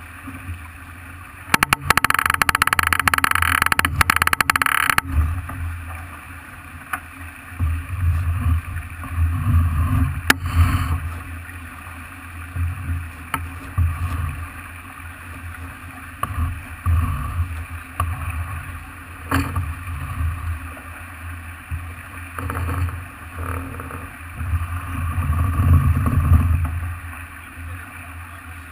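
Wind and water noise aboard a Farr 40 racing yacht under sail: an uneven, gusting low rumble of wind on the microphone, with a loud rushing burst from about two to five seconds in.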